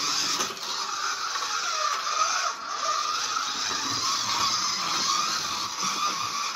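Scalextric slot car running on the plastic track, its small electric motor giving a steady, slightly wavering whine over a rattling hiss.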